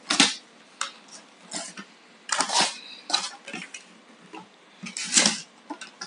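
Irregular clicks, knocks and clatter of small hard objects being handled, with louder clatters just after the start, about two and a half seconds in and about five seconds in.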